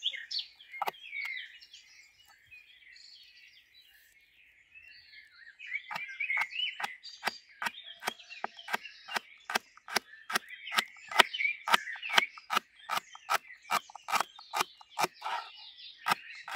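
A knife chopping green stalks against the wooden base of an upturned bowl, in steady strokes about three a second that start about six seconds in. Birds are singing throughout.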